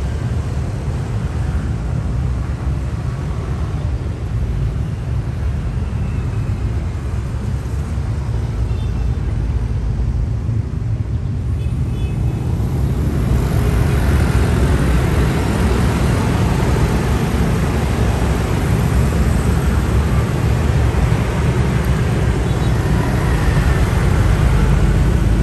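Roadside traffic: a steady low rumble of engines and tyres that thins out for a few seconds, then grows louder from about halfway through as a dense wave of motor scooters, cars, a van and a city bus passes close by.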